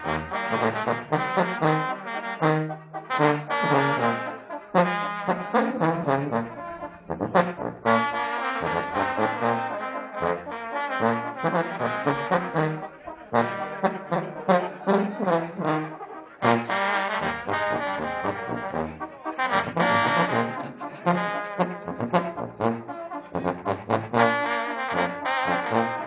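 Brass band music: trumpets and trombones playing a melody over a moving bass line, in the Zacatecan banda/tamborazo style.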